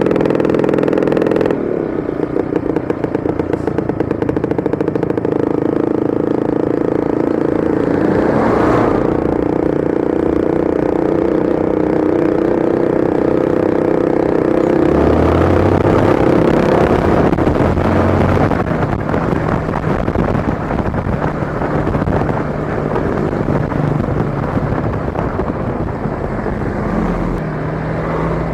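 Yamaha Sniper 155 motorcycle's single-cylinder engine running continuously. Its note holds steady for about the first half, then drops lower and shifts about halfway through.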